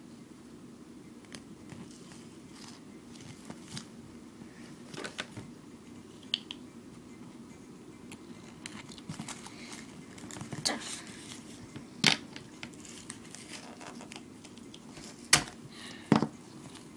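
Duct tape being handled and pressed onto cardboard tape cores: crinkling and rustling with scattered clicks, and a few sharp knocks, the loudest about twelve seconds in and near the end.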